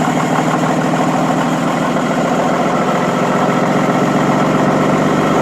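2017 Ram 2500's 6.7 L Cummins inline-six turbo-diesel idling steadily with its diesel clatter, seconds after a cold start at −2 °F with the block heater left unplugged.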